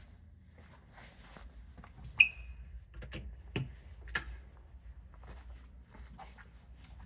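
Low steady hum of a ferry's machinery, with scattered light clicks and knocks. One sharp clink with a brief ringing tone comes about two seconds in.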